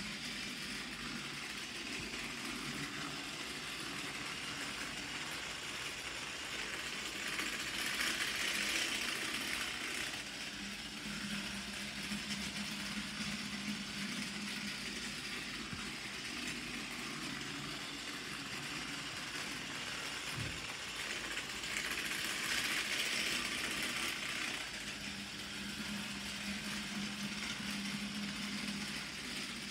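Plarail TS-03 Henry toy train's small battery motor whirring as it runs, its wheels rattling over plastic track sections. It swells louder twice, about fourteen seconds apart.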